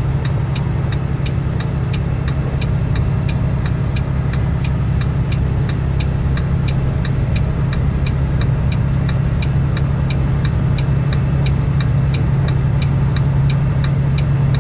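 Semi truck's engine droning steadily, heard inside the cab, with a light, even ticking about three times a second.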